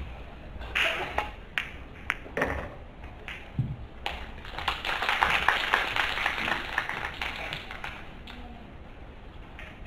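A few sharp clicks of a pool cue striking the cue ball and the balls colliding on the table. About four seconds in, audience applause follows the shot and dies away by about eight seconds.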